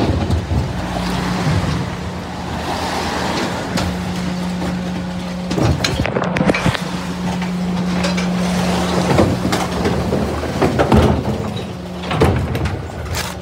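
Rear-loading refuse truck working: a steady hum from the engine and hydraulics running the Terberg Omnidel bin lifts and the Olympus body's compaction plates, with hissing and repeated knocks and clanks as wheelie bins are lifted and tipped into the hopper.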